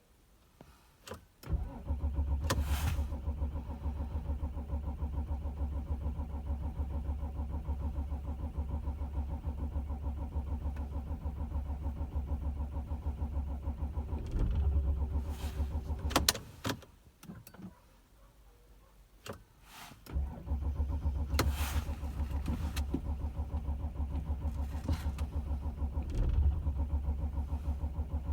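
Starter cranking the 2006 Audi A6's cold 2.7 TDI V6 diesel in two long attempts: a steady rhythmic chug for about fifteen seconds, a pause of a few seconds, then cranking again. This is the cold no-start fault: the engine turns over without catching.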